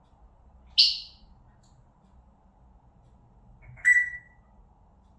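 Pet parrot giving two short, sharp calls about three seconds apart: the first high and shrill, the second lower and more whistle-like.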